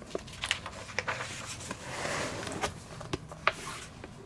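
Pages of a printed code book being leafed through: soft paper rustling with scattered sharp ticks and flicks, the longest rustle about two seconds in.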